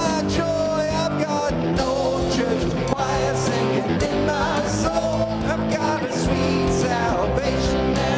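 Live worship band playing an upbeat rock-style gospel song, with guitars, bass and drums and a singing voice.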